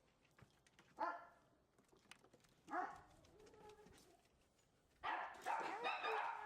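Dog barking: a single bark about a second in and another near three seconds, then a quick run of barks through the last second and a half.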